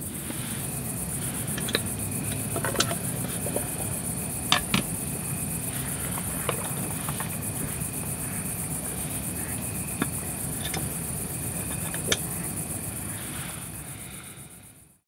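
Crickets chirring steadily at a high pitch in the night, with a few scattered clicks and knocks of gear being handled close by. The sound fades out near the end.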